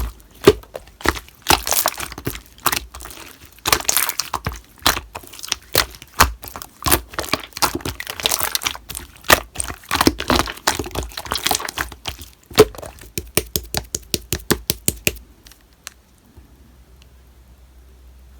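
Slime being squeezed, stretched and pressed by hand, giving fast, irregular sharp clicks and pops over a soft crinkling. The clicking stops abruptly about three-quarters of the way in, leaving only a faint low hum.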